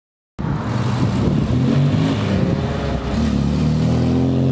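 1956 MGA's four-cylinder engine, an upgraded 1800, running and revving as the car pulls away, its pitch rising and falling. The sound cuts in sharply just under half a second in.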